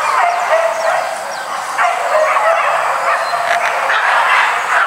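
A pack of hunting dogs barking and yelping on the hunt, several voices overlapping without a pause.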